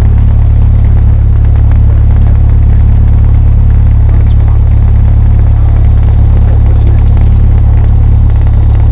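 Cessna 172's piston engine and propeller running steadily, heard loud inside the cabin as a constant low drone.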